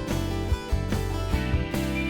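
Background music: upbeat country-style track with strummed acoustic guitar and a steady beat.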